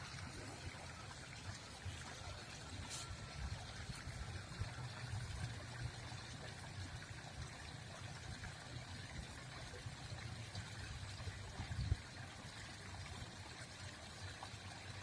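Faint steady trickle of running water with a low rumble underneath, and a single knock about twelve seconds in.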